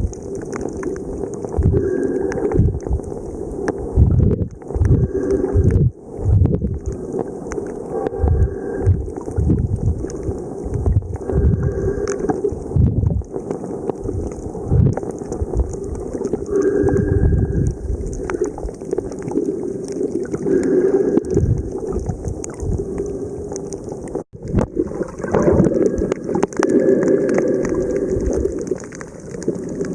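Muffled underwater sound recorded while snorkelling: water sloshing and gurgling in the shallow surge, coming in uneven low surges.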